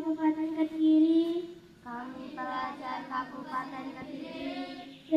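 Group of children's voices chanting a pledge in unison, in a sing-song way. The first syllable is drawn out as one long held note, then shorter syllables follow.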